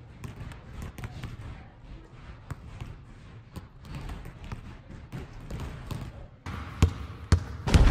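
A basketball bouncing on a hardwood gym floor during free-throw shooting, with scattered knocks of the ball and the players' footwork. Near the end a much louder rushing noise with sharp bangs sets in.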